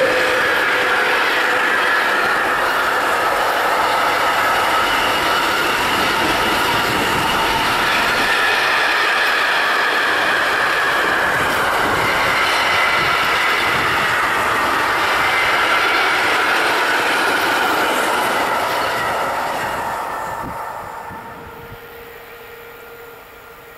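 Container train's flat wagons rolling past close by: a loud, steady rumble of wheels on rail with high wavering squeals from the wheels. The sound falls away about twenty seconds in.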